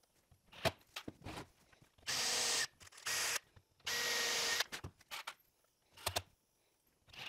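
A power drill running in three short bursts into a wooden drawer joint, the work for its countersunk screws, with light knocks and clicks of handling before and after.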